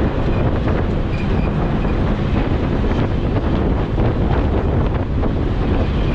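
A bus in motion heard from inside the cabin: a steady engine and road rumble with wind noise on the microphone.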